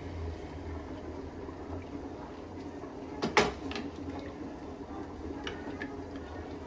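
Pot of rice and water heating on the stove, a low steady hiss with faint liquid sounds, broken by one sharp metallic clank a little over three seconds in and a few light clicks later.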